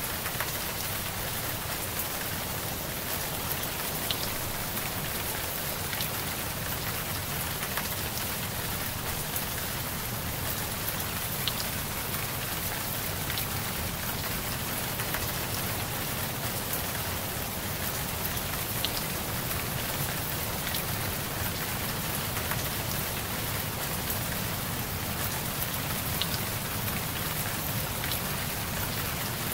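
Steady rain falling on a surface, with an occasional sharp single drop tick: a rain track of the kind used to mask layered subliminal affirmations.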